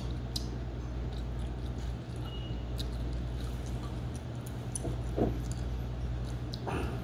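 Close chewing of pizza with small mouth clicks over a steady low room hum. A short louder sound comes about five seconds in, and another just before the end.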